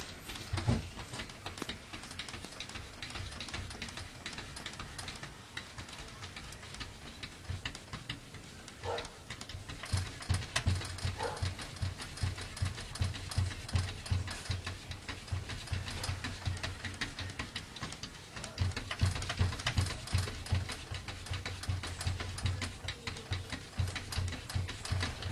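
A cat's paws tapping and scratching rapidly against a glass door, a quick run of soft taps about four a second, in two spells.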